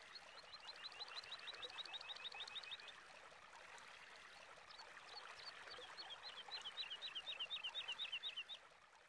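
A bird calling in two runs of quick, high, down-slurred notes, about six a second, over a faint steady hiss. The first run fills the opening three seconds; the second starts near the middle, grows louder and stops shortly before the end.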